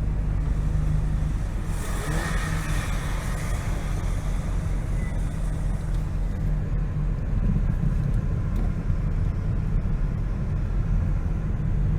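Steady low engine and drivetrain drone of a 4x4 driving a snowy trail, heard from inside the cab. A brief hiss rises and fades about two seconds in.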